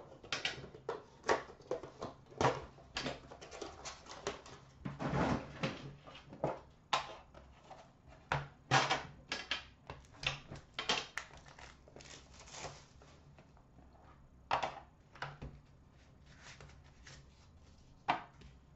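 A hockey card hobby box and its rigid lid and inner case being handled and set down on a glass counter: irregular taps, knocks and short scrapes, with a few quieter gaps.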